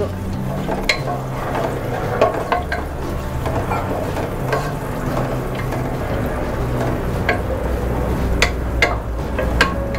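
Sliced onions, bay leaves and whole spices sizzling in hot oil in a nonstick pot while a wooden spatula stirs them, scraping and tapping against the pot every second or so.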